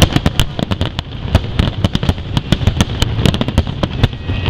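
Fireworks display: a rapid, irregular string of aerial shell bangs and crackles, several a second, with a low rumble underneath and the loudest bang right at the start.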